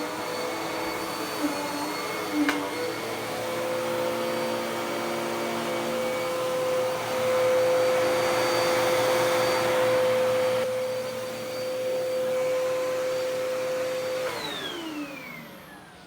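Dirt Devil PowerMax Pet upright vacuum cleaner running steadily, with two sharp clicks in the first few seconds and a louder stretch in the middle. About fourteen seconds in it is switched off, and its motor whine falls in pitch as it spins down.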